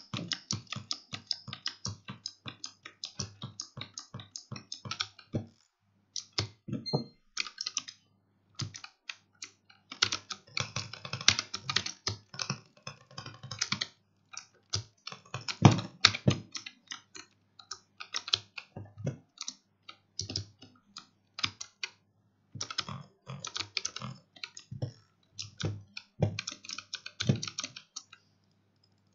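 Razer Huntsman Mini 60% keyboard's optical switches clacking under rapid, uneven keypresses in fast runs broken by short pauses. A faint steady hum sits underneath.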